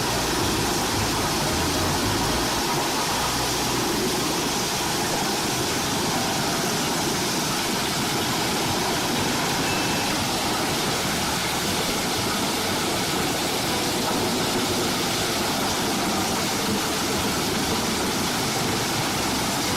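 Eschelbach Biber 92 wood chipper running and chipping logs, a loud, steady, dense rushing noise that does not let up.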